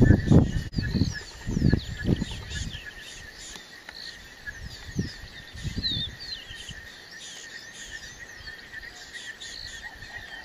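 Wild birds chirping and calling over a steady high-pitched trill, outdoor bush ambience. Low rumbling bursts in the first three seconds and again around five to six seconds.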